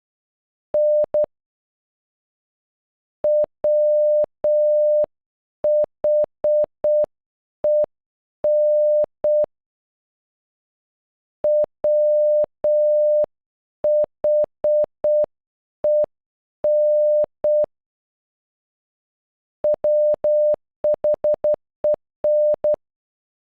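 Computer-generated Morse code: one steady beep keyed in dots and dashes, spelling WHEN (.-- .... . -.). It opens with the last dash and dot of an N, spells the word twice at half speed, then once at normal speed near the end.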